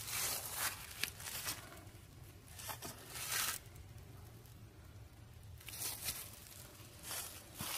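Dry fallen leaves rustling and crunching underfoot in a few short, irregular bursts.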